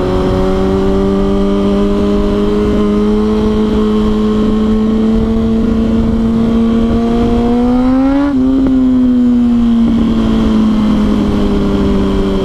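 2006 Yamaha R1 inline-four sport bike with GYTR slip-on exhausts, running at steady revs under way, with wind rumble on the microphone. About eight seconds in the revs climb, break off sharply and sink back before settling, and they start to climb again near the end.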